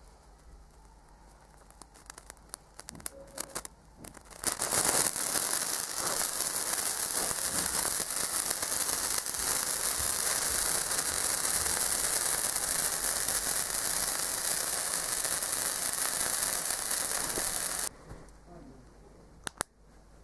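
A handheld sparkler catching light under a laser: a few small crackling pops, then about four seconds in it flares up and burns with a loud, steady fizzing crackle that stops abruptly a couple of seconds before the end.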